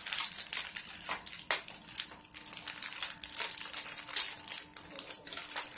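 Small plastic Lego pieces clicking and rattling as they are handled, with a plastic bag crinkling; the clicks come irregularly, several a second.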